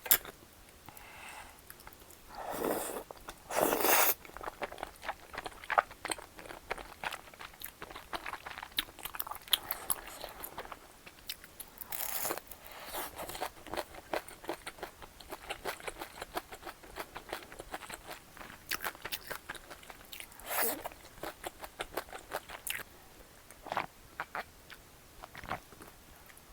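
Close-miked mukbang eating sounds: a stream of small wet clicks of chewing and biting through a tteokbokki meal. Louder crunching bites come about three and four seconds in, again around twelve seconds, and once more around twenty seconds.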